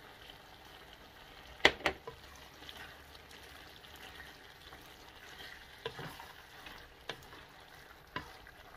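Sliced döner kebab meat and vegetables sizzling faintly in a granite-coated pot as they are stirred with a wooden spatula, with a few sharp knocks of the spatula against the pot, the loudest two together about two seconds in.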